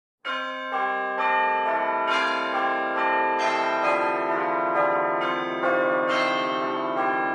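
Bells ringing a melody as intro music, struck notes coming about every half second and ringing on over one another.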